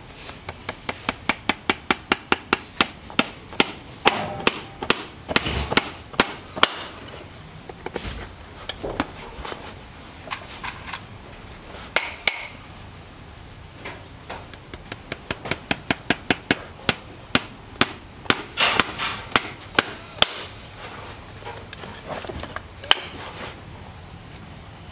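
Farrier's hammer striking steel in two long runs of ringing blows, about three a second, with a few single strikes between the runs.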